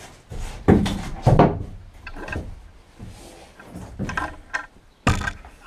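A handful of knocks and thumps from hard objects being handled, the two loudest coming close together about a second in, then lighter knocks.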